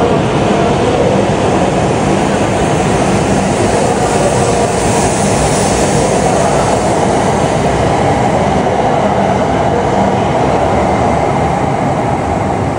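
Shinkansen bullet train running slowly alongside the platform: a steady hum of the moving train with the rumble of wheels on the rails, close by and unbroken.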